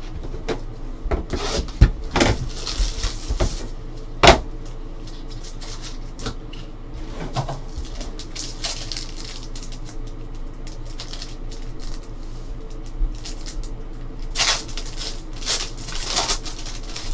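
Handling trading-card boxes and packs: light knocks and clicks, then a foil card pack crinkling and tearing as it is ripped open near the end.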